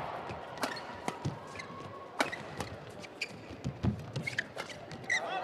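Men's doubles badminton rally: a quick, irregular string of sharp racket-on-shuttlecock hits, with short squeaks of players' shoes on the court mat.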